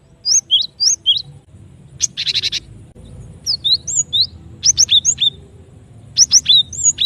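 Cinereous tit (gelatik batu) calling: quick groups of sharp, sweeping whistled notes, with a short harsh buzzy rattle about two seconds in.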